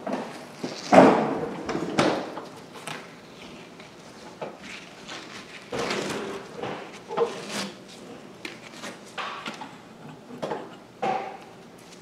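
Hot-water-soaked wallpaper border being peeled off the wall by hand: irregular tearing sounds, the loudest about a second in.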